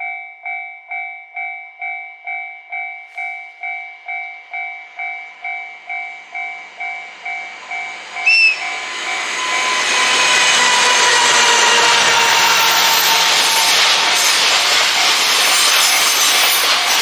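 Japanese level-crossing warning bell dinging about twice a second. About eight seconds in there is a brief loud high note, and a train's passing noise swells into a steady loud rush that buries the bell.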